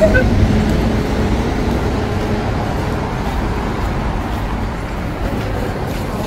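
Road traffic noise: a steady low rumble and rush of passing vehicles that eases a little over the seconds.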